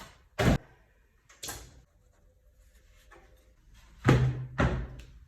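A few sharp knocks and clunks of hard objects: a loud one about half a second in, a softer one a second later, then two loud ones half a second apart near the end.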